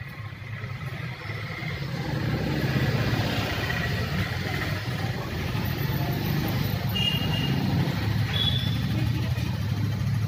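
An engine running with a steady low rumble that grows louder over the first few seconds and then holds, with a few brief high-pitched beeps near the end.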